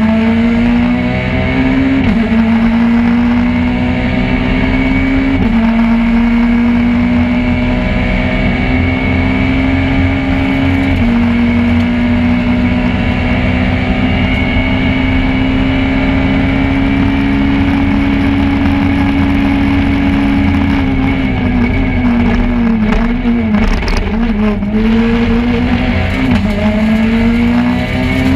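Peugeot 208 R2 rally car's 1.6-litre four-cylinder engine at full throttle, heard from inside the cabin. The revs climb and drop sharply at gear changes about 2, 5 and 11 seconds in, then hold high and slowly rising for a long stretch. Near the end they fall and jump up and down as the car slows and accelerates again.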